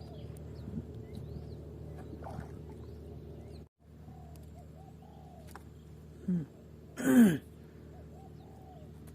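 Birds calling over a steady low hum: small chirps throughout, and two falling calls, one short and then a louder one about seven seconds in.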